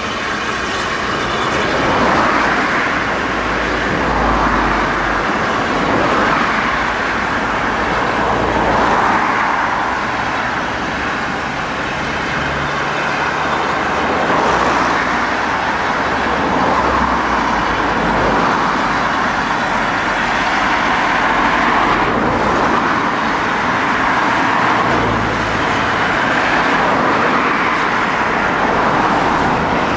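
Road traffic noise: motor vehicles running along a road, the steady noise rising and falling every couple of seconds.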